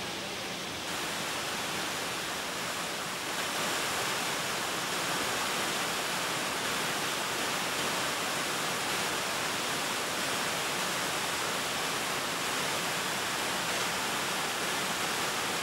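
Steady rushing of a nearby waterfall, stepping up a little in level in the first few seconds.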